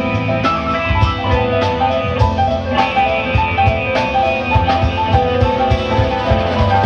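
Live band playing an instrumental passage: a Roland FP-4 digital piano plays a run of notes over guitar and a steady low drum beat.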